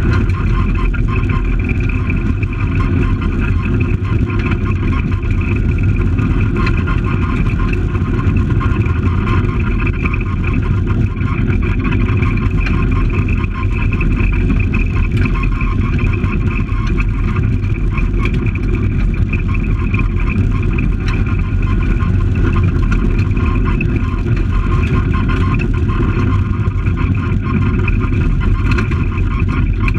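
Fiat Palio rally car's engine pulling hard at high revs, heard from inside the stripped cabin, with steady tyre and gravel noise from the loose road surface.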